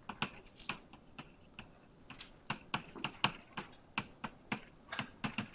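Chalk clicking against a blackboard while writing: a quick, irregular run of short, sharp taps, several a second.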